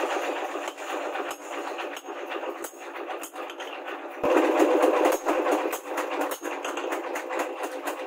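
Hand hammer striking glowing rebar steel on a post anvil, a quick run of sharp blows a few times a second, over a steady background din that swells suddenly about four seconds in.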